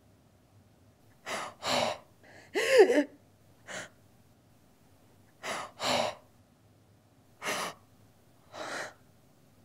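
A woman gasping in harsh, ragged breaths, about eight of them with pauses between. About three seconds in, one breath carries a short voiced cry that rises and falls.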